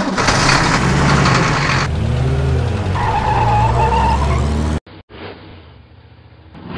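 Sound effect of a monster truck engine revving and pulling away, with a tyre squeal about three seconds in. It cuts off suddenly about five seconds in, and a quieter engine sound follows, revving up again near the end.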